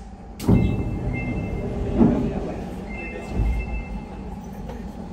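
Sapporo Toho Line subway car interior: a sudden rise of low running noise and clatter about half a second in. A steady two-note electronic chime sounds twice, each time for about a second.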